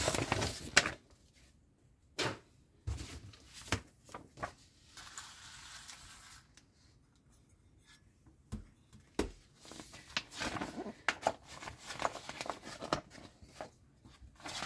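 Handling noises on a tabletop: a few light clicks and knocks of small plastic model parts being picked up and set down, then the rustle and crinkle of a glossy magazine being opened and its pages pressed flat in the second half.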